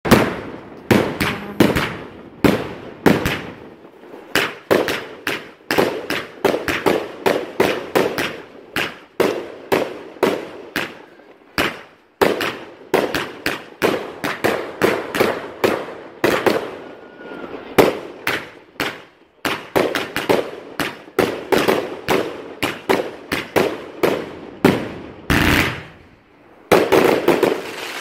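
Finale firework barrage going off: a rapid run of sharp bangs and cracks, about three a second, with a longer, louder burst near the end.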